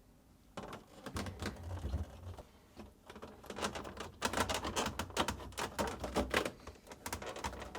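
Rapid, irregular small plastic clicks and taps from a refrigerator's top panel being handled and its retaining tabs worked into the retainers.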